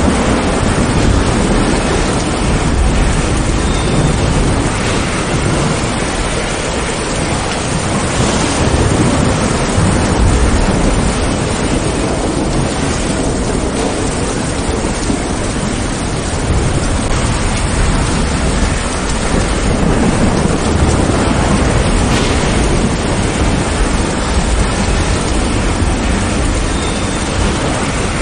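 Steady rain with a low rumble of thunder that swells and fades a few times.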